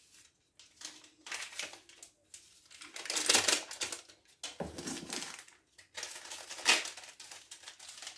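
Small sachets of baking powder being handled and torn open, crinkling and crackling in irregular bursts.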